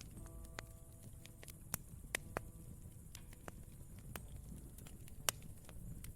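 Campfire crackling: many sharp pops and snaps over a low steady rumble, the loudest pop about five seconds in. A few soft piano notes sound near the start and again a little past two seconds.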